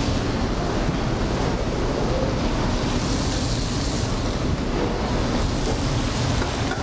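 Steady rushing noise of a commercial kitchen's ventilation and lit gas range burners.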